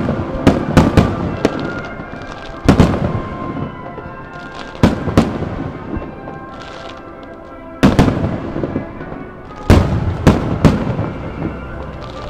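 Fireworks shells bursting in a starmine display. A quick cluster of booms comes at the start, then single and double booms every two to three seconds, each dying away, with music playing throughout.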